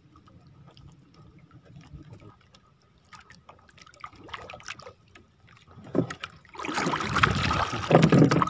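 Faint ticks and rustles while a fishing handline is hauled in by hand. About six and a half seconds in, loud water splashing starts and runs for about two seconds.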